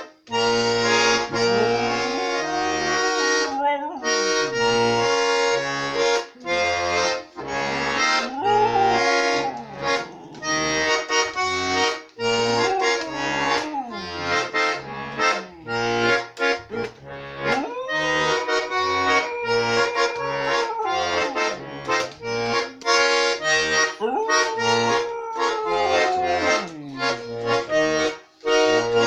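Accordion playing a tune over a steady bass-and-chord rhythm, with a dog howling along in long notes that rise, hold and fall, the longest lasting about three seconds.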